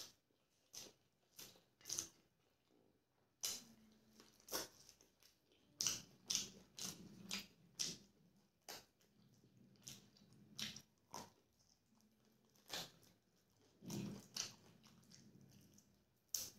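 Close-up mouth sounds of a person eating rice and chicken curry by hand: chewing and lip-smacking, heard as irregular wet clicks a second or so apart. Near the end he bites meat off a chicken leg bone.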